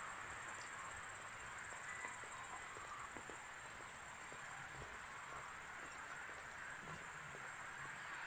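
Crickets trilling steadily: a high, even, continuous buzz over soft background hum.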